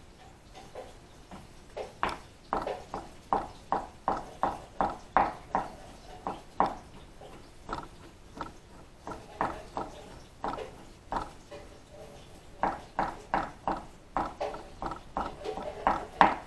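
Knife chopping pickles finely on a cutting board: runs of quick, even taps, about three a second, broken by short pauses.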